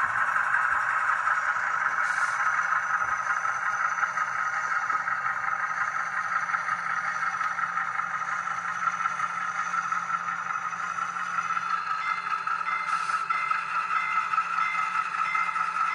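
HO-scale model freight train of grain hopper cars rolling along the track: a steady rattling rumble of small wheels on rails. A faint, evenly pulsing tone joins in about three-quarters of the way through.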